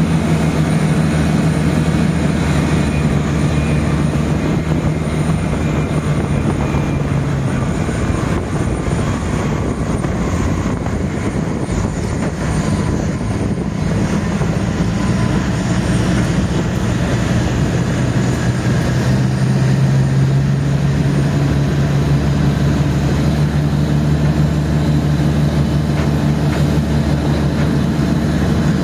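Steady engine drone and wind rush from the roof of a moving vehicle; the low engine hum drops in pitch about eight seconds in and rises again about nineteen seconds in.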